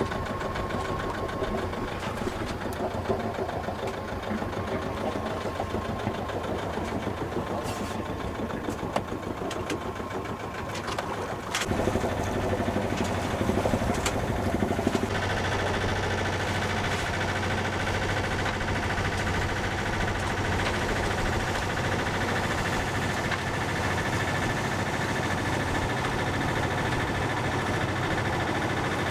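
Sailboat's engine running steadily as the boat motors along. The sound jumps louder about twelve seconds in and shifts again a few seconds later.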